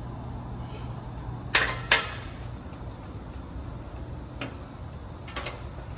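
Metal clinks from an Allen key working the bolts of the truss pin connectors on a base plate: two sharp clanks close together about a second and a half in, then a few fainter clicks later on.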